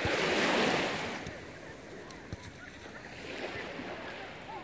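Calm, clear sea water washing softly at the shoreline: a brief rush of noise through the first second, then a low steady hiss.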